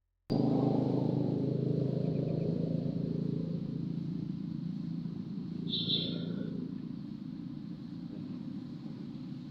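A motor vehicle's engine rumble that fades gradually, with a brief high-pitched chirp about six seconds in.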